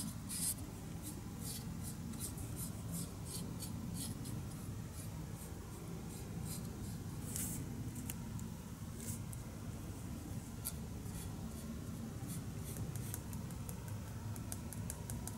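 A fine paintbrush stroking and dabbing on a hard plastic model-car chassis, as short irregular scratchy strokes several times a second, over a low steady hum.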